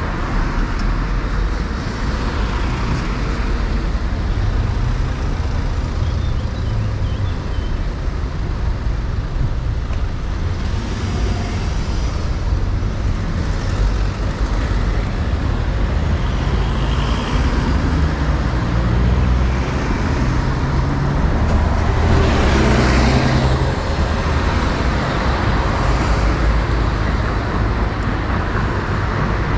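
Steady road traffic, vehicles passing on a busy road in a continuous low rumble, with one louder vehicle going by about three-quarters of the way through.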